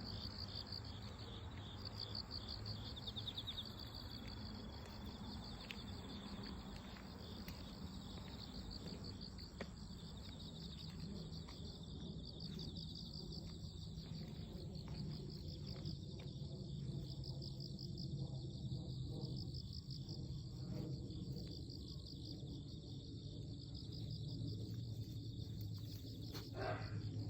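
Insects, cricket-like, chirping in pulsed high trills over a steady low hum, with one short louder sound near the end.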